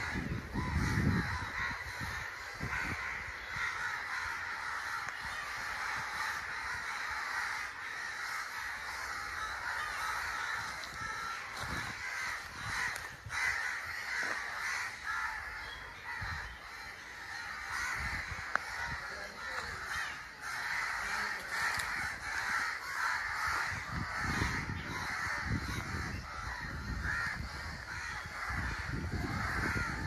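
A flock of crows cawing continuously, many calls overlapping. A low rumble comes about a second in and again near the end.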